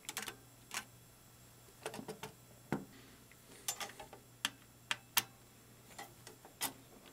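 Irregular light clicks and taps of small metal parts being handled and pressed into place as a model steam locomotive's boiler is fitted to its chassis, about ten in all, over a faint steady low hum.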